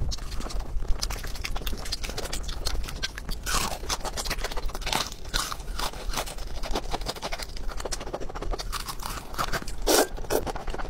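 Close-miked crunching and chewing of crispy breaded fried chicken, a steady run of crackles and clicks. About ten seconds in there is a loud slurp of noodles.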